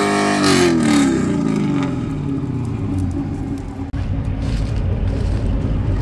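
Corvette V8 coming down off high revs at the end of a tire burnout: the engine note falls steadily over two or three seconds as the throttle is released. It then settles into a low, steady rumble.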